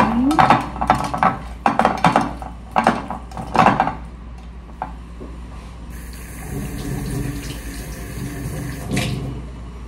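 Hands mixing raw, seasoned chicken pieces coated in salt, olive oil and vinegar: a quick run of wet squelches and slaps over the first four seconds. About six seconds in, a kitchen tap runs steadily for some three seconds as hands are rinsed under it.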